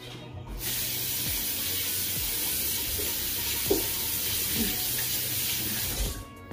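Kitchen tap running into a sink as hands are washed. The steady rush of water starts about half a second in and is shut off about six seconds in.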